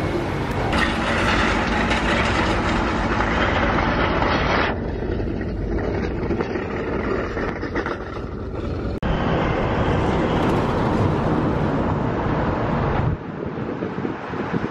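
Street ambience with steady road-traffic noise, changing abruptly three times as separate recordings are joined.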